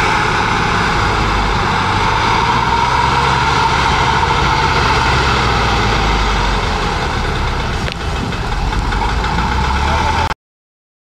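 Diesel engine of a SKOT eight-wheeled armoured carrier converted to a fire engine, running loud and steady as the vehicle crawls through sand. The sound cuts off abruptly about ten seconds in.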